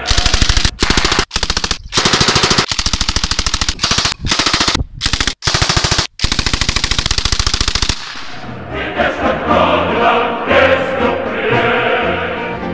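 RPD light machine gun firing in repeated bursts of rapid automatic fire, about eight bursts with short pauses between them. The fire stops about eight seconds in and choral music takes over.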